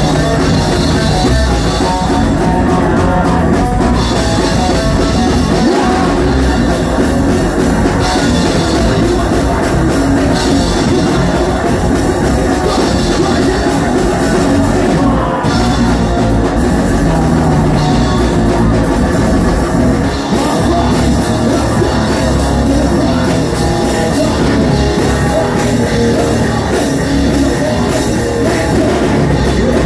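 Live punk rock band playing loud and without a break: distorted electric guitar, bass guitar and a drum kit.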